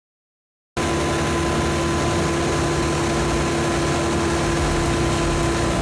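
A heavy machine's engine running steadily with a constant hum, cutting in abruptly about three-quarters of a second in after a moment of silence.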